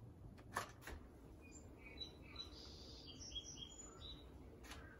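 Quiet kitchen with a few light clicks of a spatula against the mixing bowl and pan, two about half a second in and one near the end, while faint bird chirps come from outside through the middle.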